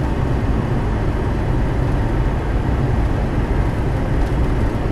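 Steady low rumble of simulated engine and airflow noise in a Boeing 737 flight simulator cockpit on final approach, just before touchdown.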